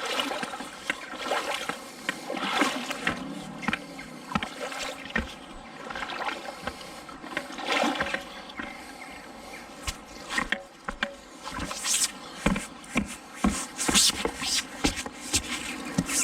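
Splashing and sloshing of a person wading through shallow river water, with irregular scrapes and clicks from a fishing magnet on a pole dragged along the riverbed. The clicks come closer together in the second half.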